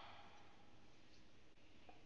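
Near silence: room tone, with the tail of a knife chop on a wooden cutting board fading out at the start.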